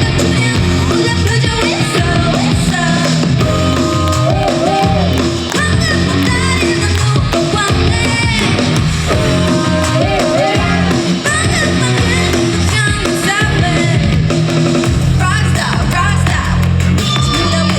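Loud, upbeat pop song with a steady bass beat and singing over it, performed for a stage show.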